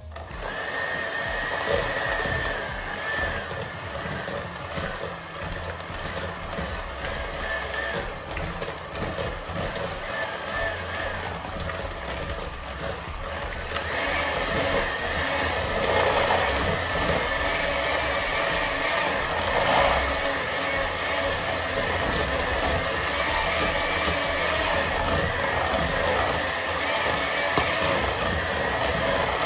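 Electric hand mixer switched on and running with a steady whine, its beaters whisking almond cream batter in a stainless steel bowl. It gets louder about halfway through.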